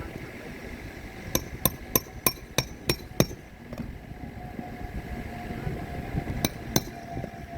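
Hammer driving roofing nails into a shingle: seven quick blows, about three a second, then a pause and two more blows near the end.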